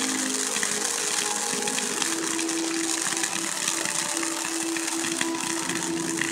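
Ground firework fountains spraying sparks: a steady loud hiss full of fine crackling. A steady low tone runs underneath and shifts pitch about two seconds in.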